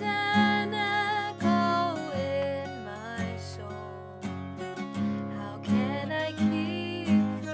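Acoustic guitar strummed in a steady rhythm, accompanying a woman singing a slow folk hymn melody.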